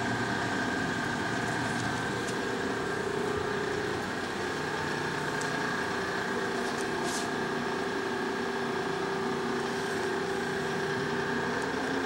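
Steady hum of running shop machinery, with several steady whining tones that hold unchanged throughout.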